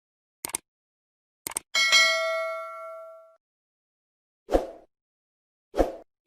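Subscribe-button animation sound effects: short clicks, then a bright bell ding that rings for about a second and a half, followed later by two short pops.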